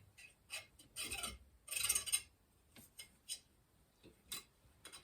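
Steel bicycle spokes clicking and scraping against the hub flange and rim as a wheel is laced by hand: scattered light ticks, with a short scrape about two seconds in.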